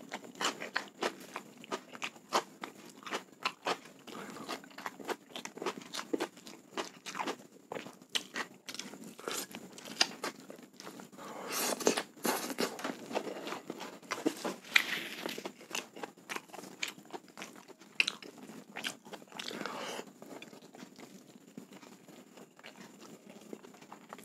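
Close-miked eating sounds of a man chewing mouthfuls of chicken, rice and raw vegetables: many short crunches and wet mouth clicks, with louder runs of crunching near the middle.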